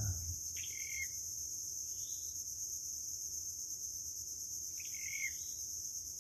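Steady high-pitched chorus of insects, such as crickets, from the mangroves, with a few short bird chirps about a second in, at two seconds and near five seconds.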